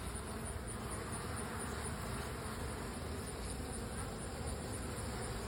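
Honeybee colony buzzing in a steady, dense hum at an open hive, stirred up by the smell of a formic acid mite-treatment pad just laid in.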